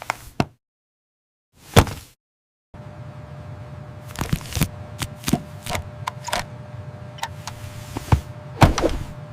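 A series of separate sharp knocks and clicks at uneven intervals. From about three seconds in, a steady background hum with a faint constant tone runs underneath.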